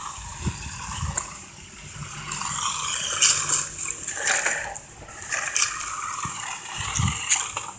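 New Bright radio-controlled toy car driving over rough ground, with irregular crunching, rattling bursts and a few sharp clicks.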